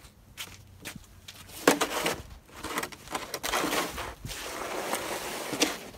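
Snow shovel scraping along a wet concrete driveway, pushing snow and slush. A few light knocks come first, then a sharp scrape just under two seconds in, then a longer continuous scrape through most of the second half.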